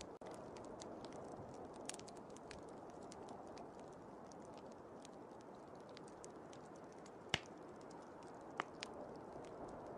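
Wood fire crackling with scattered sharp pops, the loudest about seven and eight and a half seconds in, over a steady rushing of blizzard wind.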